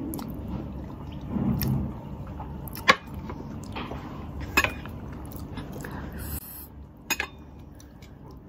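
Instant noodles being slurped and chewed, with a few sharp clicks of wooden chopsticks against a ceramic bowl as the noodles are stirred.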